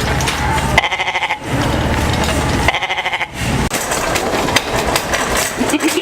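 Goat bleats: two short, wavering calls about two seconds apart, over a steady background din.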